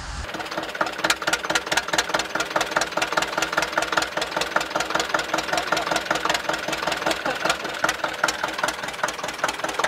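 Zetor 25's two-cylinder diesel engine running at a steady idle, with a sharp, even knocking beat.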